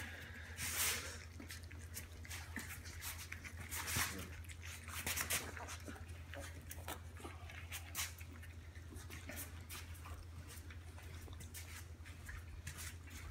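Basset hound puppies lapping and smacking at wet mush in a dish: a run of small, irregular wet clicks, with a few louder ones about a second in and again around four and five seconds.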